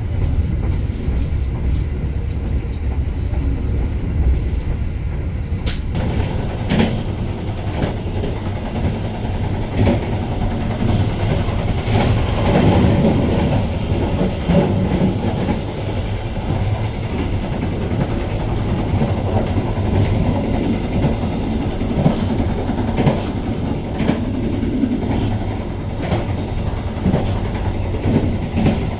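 Argo Bromo Anggrek passenger train riding along the track: a steady low rumble from the coach, with sharp clacks of the wheels over rail joints every second or two.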